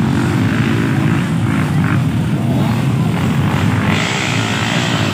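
Several dirt bike engines running at once, a steady low drone.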